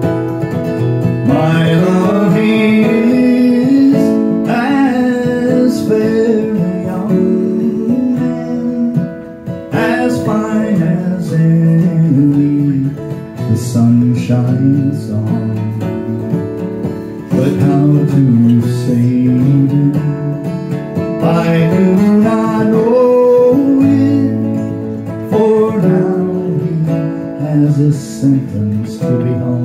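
Acoustic guitar strumming behind a solo voice singing a traditional folk ballad. A fiddle joins near the end.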